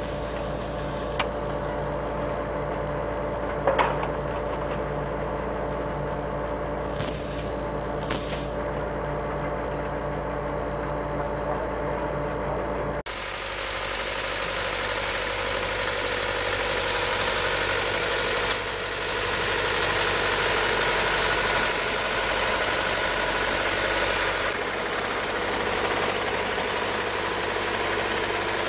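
Engine of a lettuce-harvesting rig running steadily, with a clank about four seconds in. About 13 seconds in the sound changes abruptly to the engine of a tracked SPLAT 1.0 thinning rover running as it drives along the crop rows.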